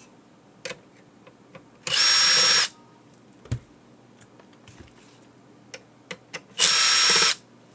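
Small electric screwdriver running in two short bursts of under a second each, backing out the silver screws that hold a circuit board, with light clicks of handling in between.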